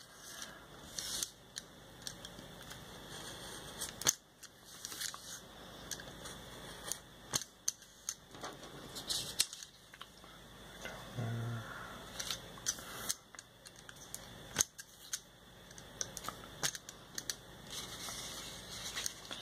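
Snap-off craft knife slicing through paper on a cutting mat: irregular scratchy strokes and sharp ticks of the blade, with the paper rustling now and then as the sheet is shifted.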